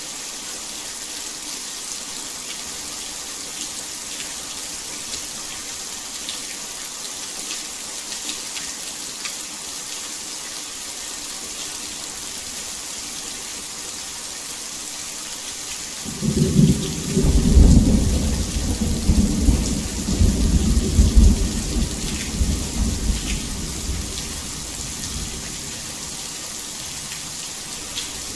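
Heavy rain falling steadily as an even hiss. More than halfway in, a long rumble of thunder rolls in, peaks a couple of seconds later and dies away over about ten seconds.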